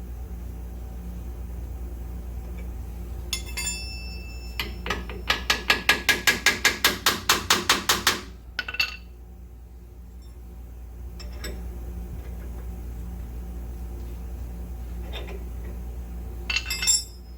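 A fast, even run of about fifteen sharp metallic strikes, some five a second, from tools working on the ball joint press, with a few scattered clinks of steel parts before and after. A low hum runs underneath throughout.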